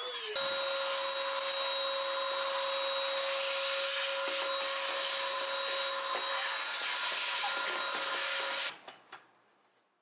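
Hericaine H11 cordless stick vacuum running with its crevice tool, a steady whine over an airy suction hiss; it cuts off abruptly near the end.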